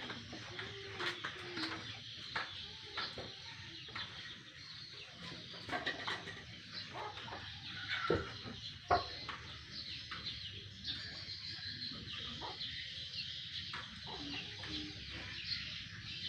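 Chickens clucking, with a few irregular sharp knocks; the loudest knocks come about halfway through.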